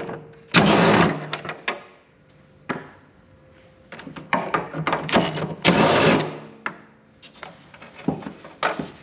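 Knocks, clicks and clatter from the Ryobi table saw as it is being taken apart, with two short, loud scraping rushes, one about half a second in and one near the middle, as the table is worked free.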